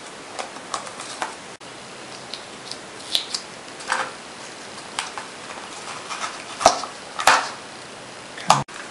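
Adhesive tape being pulled off its roll and torn into short strips by hand, a run of short crackling rips and clicks, with two sharper rips about three-quarters of the way through.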